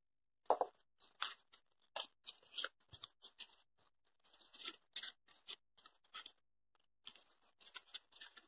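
EVA craft-foam petals being handled and pressed together by hand, rubbing on each other and on the table: a run of short, irregular scratchy rustles.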